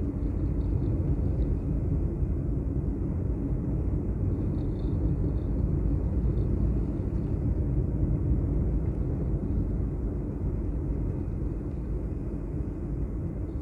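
Steady low rumble of a vehicle on the move: engine, road and wind noise, with a faint steady hum throughout.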